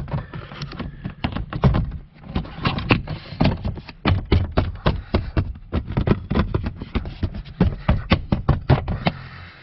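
Rapid, irregular plastic clicks and knocks, several a second, as a hand presses and taps a 2010 Camaro's centre-console side trim panel into place to seat its clips.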